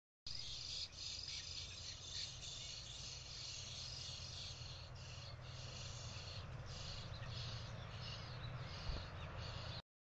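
Steady, dense chorus of high-pitched chirping, insect- or songbird-like, over a low hum, with one sharp click about nine seconds in. It starts just after the beginning and cuts off suddenly near the end.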